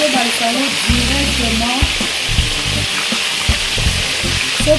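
Pieces of salted fish (makayabu) frying in hot oil in a pan, a steady loud sizzle. A spatula knocks lightly against the pan now and then.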